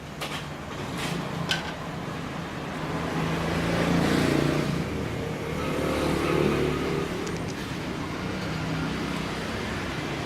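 A steady motor hum that swells louder about four seconds in and again a little past six seconds, with a few light clicks near the start.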